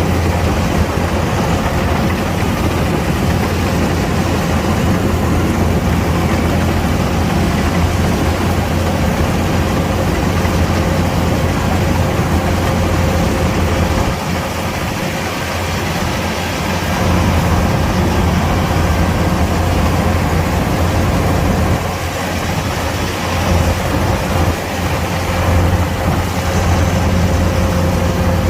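Kubota DC-105X combine harvester running, its diesel engine and threshing machinery going at a steady pace with a constant low drone and a steady whine. The sound eases briefly about halfway through and again about three-quarters of the way through.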